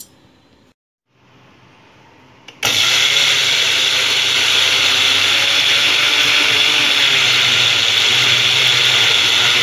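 Electric mixer grinder (mixie) grinding soaked raw rice in its steel jar. It starts suddenly about two and a half seconds in and runs loud and steady at full speed.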